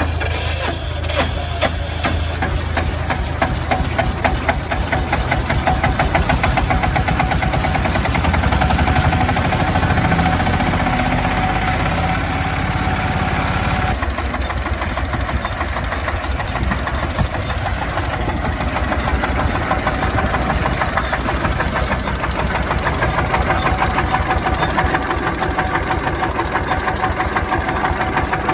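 Jiangdong JD300 30 hp single-cylinder diesel engine running steadily, with a rapid, even knock from each firing stroke. About halfway through, the low rumble drops off abruptly and the engine keeps running.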